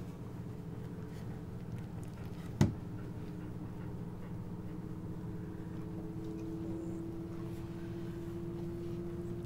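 Steady low hum, with a faint steady tone growing stronger after about three seconds, and a single sharp knock about two and a half seconds in.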